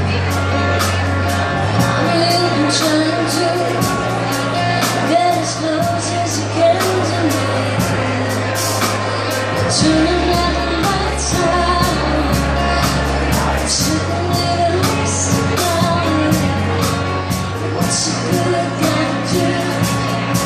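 Live pop band playing: a female lead vocal over held keyboard bass notes and a drum kit with steady cymbal strokes. The bass note changes about two seconds in, about ten seconds in and again near fourteen seconds.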